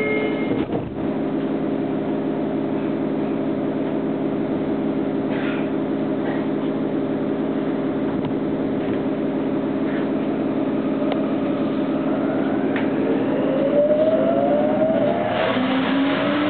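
Tokyo Metro 07 series car's sliding doors shut with a knock under a second in, then the stopped train's equipment hums steadily. From about 13 s the VVVF inverter starts its rising whine, several tones gliding upward together as the train starts to pull away; the inverter runs the revised software sound, close to that of the 03 series and the Namboku Line 9000 series.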